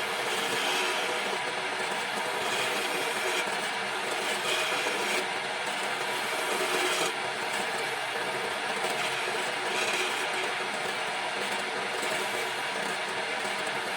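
Wood lathe running with a turning tool cutting the spinning wood: a steady scraping hiss that brightens in short spells as the tool bites.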